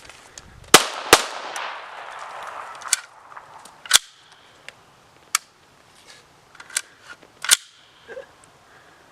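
PPS-43C semi-automatic carbine in 7.62×25 Tokarev firing single shots at an uneven pace, about six over the span, with irregular gaps typical of hard-primer surplus ammunition that does not fire every round.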